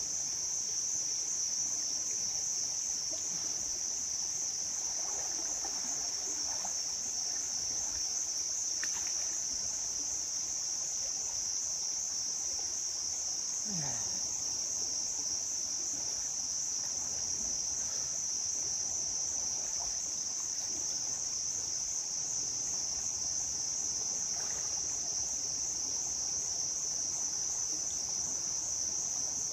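A steady, high-pitched chorus of insects, one unbroken shrill drone that does not change through the whole stretch.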